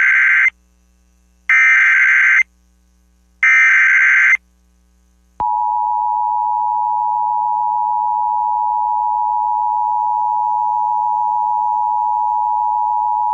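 Emergency Alert System SAME header: the tail of one screeching data burst and two more, each about a second long, then about five seconds in the steady two-tone EAS attention signal starts and holds. Together they mark the start of an emergency alert broadcast.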